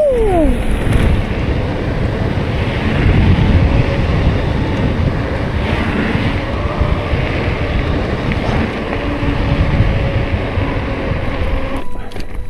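Wind buffeting the microphone of a camera mounted on the handlebars of a moving bicycle, mixed with tyre rumble on the road and trail. A brief falling tone sounds right at the start, and the noise cuts off just before the end.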